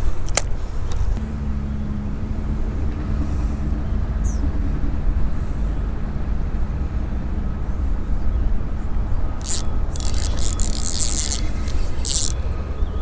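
Steady low rumble with a steady engine hum through most of it, and short bursts of rustling near the end.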